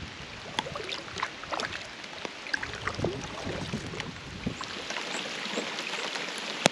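Light rain falling on a lake and on a kayak: many scattered, sharp drop hits over a steady hiss. A low rumble underneath stops about four and a half seconds in.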